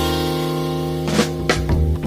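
Background music: a held chord, then a few drum hits in the second half.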